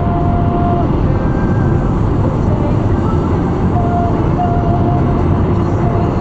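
Steady road and tyre noise of a car cruising at about 66 mph, heard inside the cabin.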